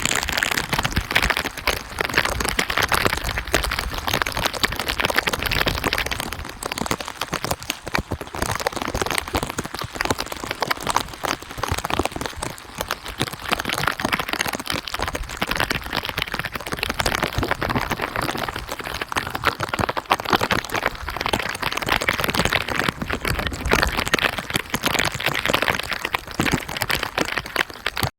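Heavy rain falling steadily, a dense pattering with a close crackle of drops striking nearby surfaces.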